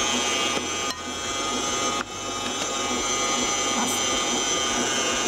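Kenwood kMix stand mixer running steadily, its beater turning through vanilla cake batter in a steel bowl, with a constant motor whine.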